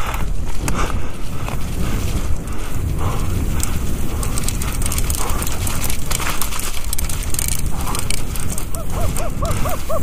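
Mountain bike descending fast over a rough grass-and-dirt trail, heard from a rider-mounted GoPro: tyres rumbling, the bike rattling over bumps, and wind buffeting the microphone. Near the end comes a quick series of short rising-and-falling tones.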